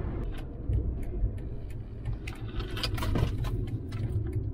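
Car running on the road, a steady low engine and road rumble heard from inside the cabin, with scattered light clicks and rattles.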